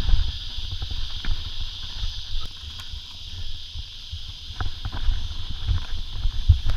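Mountain bike riding down a rocky trail, picked up by a bike-mounted camera: low rumbling and thumping as the tyres roll over rock, with frequent sharp knocks and rattles from the bike.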